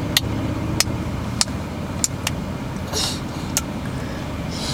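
Steady car road and engine noise heard from inside the cabin, with several light, irregularly spaced clicks and a brief soft hiss about three seconds in.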